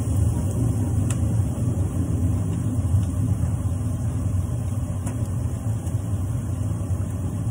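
Steady low rumbling hum of kitchen appliances running while pans cook on a gas hob. There is a faint click about a second in and another about five seconds in.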